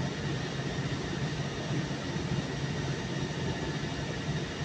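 Steady low mechanical hum with a constant noisy hiss over it, unchanging throughout: continuous machinery or ventilation drone in the background.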